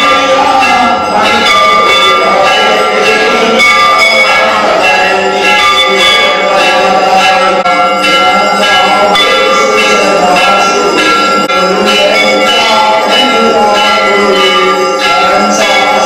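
Temple bells ringing continuously, struck rapidly and over and over so that many ringing tones overlap.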